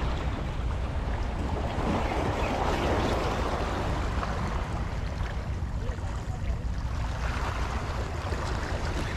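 Steady wind rumble on the microphone over the wash of the sea.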